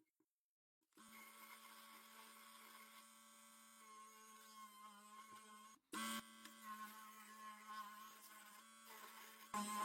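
A small electric motor running with a steady, quiet hum, starting about a second in, cutting out briefly near the middle and coming back louder.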